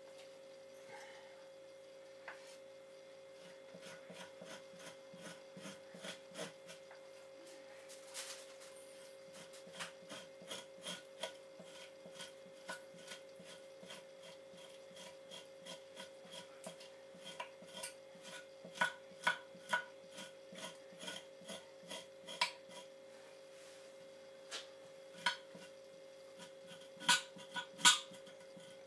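Repeated short scraping strokes of a hand tool over the flesh side of a fresh fox hide, taking off membrane, fat and leftover meat. The strokes come irregularly, about one or two a second, and grow louder near the end.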